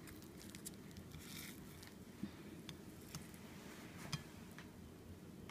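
Very quiet room tone with a few faint, isolated clicks or taps, the clearest about two seconds in and again about four seconds in.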